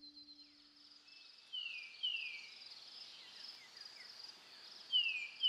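Outdoor ambience of insects trilling steadily and high, with a bird's falling chirps, the loudest sounds, coming in two pairs about a second and a half in and again near the end.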